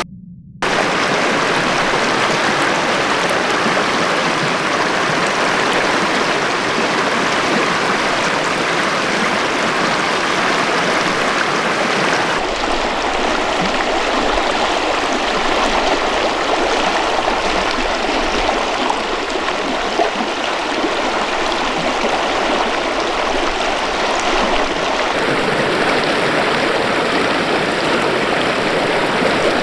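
River water rushing over rocks: a steady, full noise. It drops out for a split second at the very start, and its tone shifts slightly about twelve seconds in and again about 25 seconds in.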